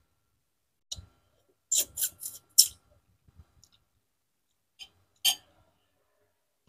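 Eating sounds as a boiled chicken head is picked apart by hand and bitten: short sharp clicks and smacks, one about a second in, a quick run of four around two seconds in, and two more about five seconds in.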